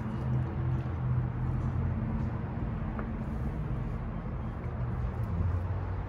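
Low, steady engine rumble of a nearby motor vehicle, its pitch drifting slightly, with a single faint click about three seconds in.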